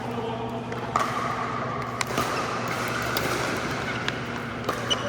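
Pickleballs popping off paddles and the court in a few scattered, sharp hits: one about a second in, one at two seconds, and two close together near the end, over a steady low hum.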